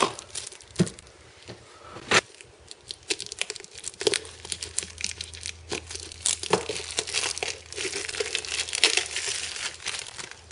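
Clear plastic wrapper crinkling and tearing as a new oil filter is unwrapped by hand: a dense, irregular run of crackles and small clicks, busier in the second half.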